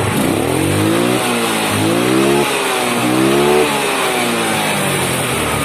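Yamaha Mio Sporty scooter's single-cylinder four-stroke engine revved three times in quick blips, each rising in pitch and falling straight back as the throttle is let go, then settling to a lower speed. The revs drop cleanly on throttle release, without coughing, now that the carburettor is adjusted.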